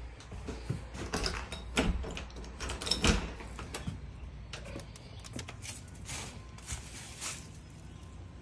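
Door being opened: clicks and knocks from the knob and latch as it swings open, then softer scattered footsteps.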